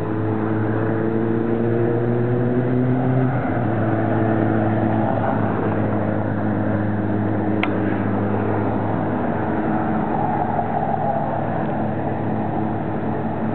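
Steady, loud low hum of a motor vehicle engine idling, which shifts slightly in pitch about three and a half seconds in, with a single short click partway through.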